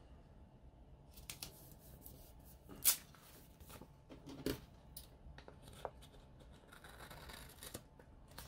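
Paper rustling and a few sharp clicks as a disc-bound planner page is handled and lifted off its discs, then scissors snipping a paper sticker tab near the end.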